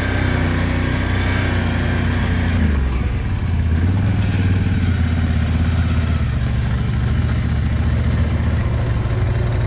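Quad (ATV) engine running steadily, its pitch changing about a third of the way in as the engine speed shifts.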